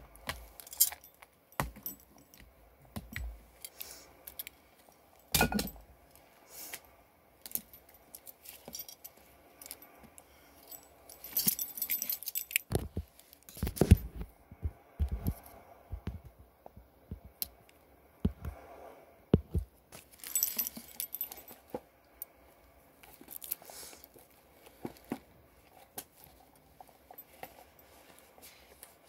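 Irregular light clicks, jingly clinks and short rustles of small objects being handled, scattered through with brief pauses between them.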